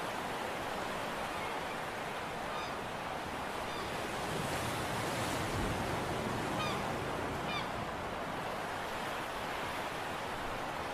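Sea surf washing steadily onto a rocky shore, with a few short high chirps about two and a half, four and seven seconds in.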